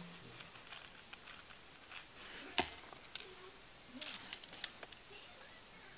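Faint plastic clicks and rattles of a Lego Technic axle assembly being handled and turned, with one sharp click about two and a half seconds in and a quick run of clicks around four seconds in.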